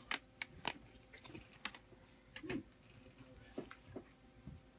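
Light, irregular clicks and taps of small tools and items being handled on a tabletop, with several quick clicks in the first second and a softer knock about halfway through.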